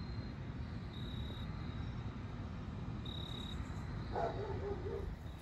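Crickets chirping in short, even-pitched trills every second or two, over a low rumble. There is a brief muffled sound about four seconds in.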